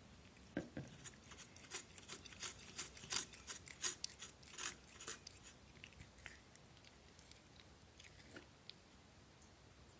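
Cat lapping yogurt: a quick run of short, wet licking clicks, about three a second, that thins out to scattered licks after about five seconds.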